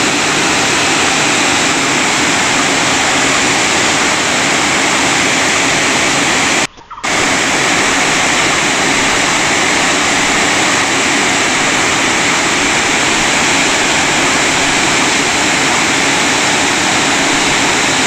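Single-tier waterfall in heavy rainy-season flow, water pouring down a rock face into a plunge pool: a loud, steady rush. The sound cuts out for a moment about seven seconds in.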